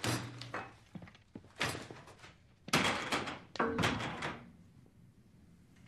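A run of heavy thuds and bangs, among them a door slamming. The bangs come every second or so and stop after about four seconds.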